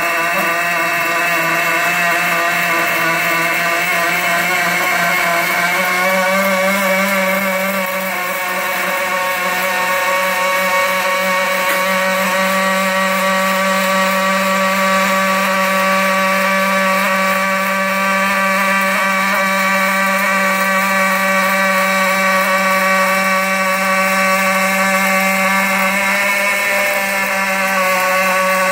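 MIG welding arc of an OTC seven-axis welding robot, a steady pitched buzz with overtones. The pitch steps up slightly about six seconds in and shifts a little again near the end.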